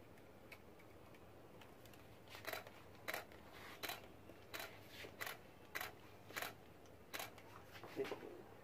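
Fabric rustling as clothes on a washing line are handled: a run of short, soft swishes, about one or two a second, starting a couple of seconds in.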